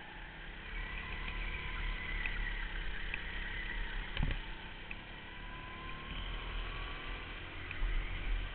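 Go-kart heard from on board while lapping: a thin motor whine that rises and falls with the throttle through the corners, over a heavy low rumble, with a single sharp knock about four seconds in.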